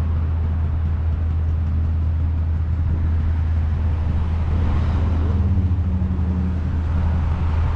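Road traffic noise with a car passing by, swelling slightly around the middle, over a steady low hum.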